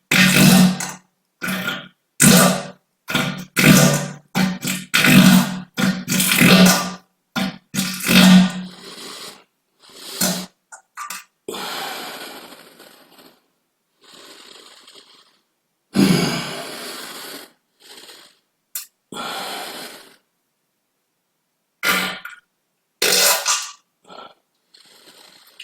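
Human farts, deliberately produced: a quick run of short, buzzy farts over the first eight seconds or so, then a few longer, hissier ones with pauses in between.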